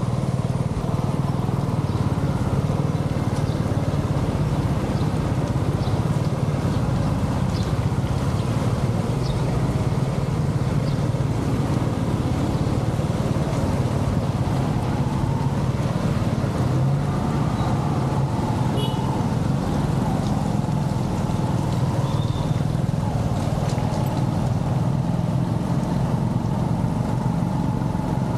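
Steady low rumble of wind and rain noise on a moving action camera's microphone during a run on wet streets, with road traffic in the background.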